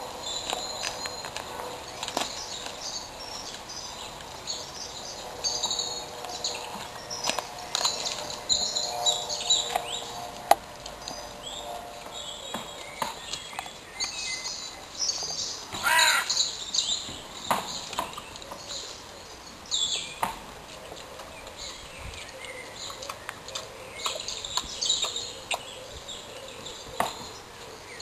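Birds chirping throughout, with several loud harsh caws, the loudest about halfway through. Scattered sharp crunches come from a red river hog chewing on a chicken carcass.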